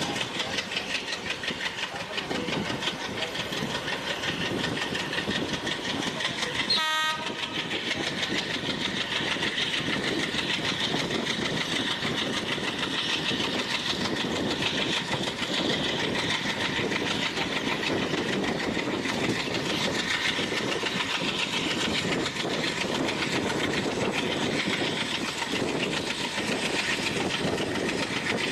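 A train running on the track: a steady, continuous rumble and rattle of wheels on rails. A brief sharp click with a short tonal ring comes about seven seconds in.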